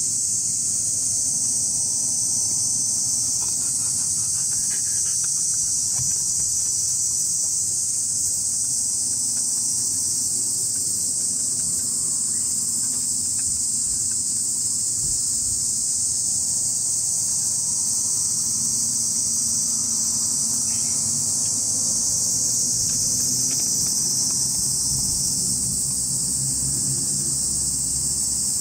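Loud, steady chorus of cicadas, a dense high sizzle that never lets up. Under it is a low rumble that grows stronger in the second half.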